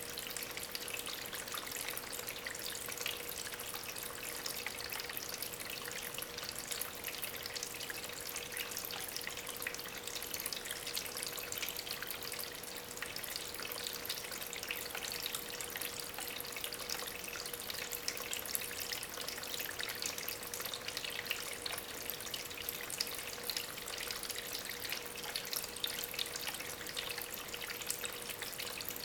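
Small homemade tabletop waterfall, water from a small aquarium pump running and splashing steadily over stones, with a faint steady hum underneath.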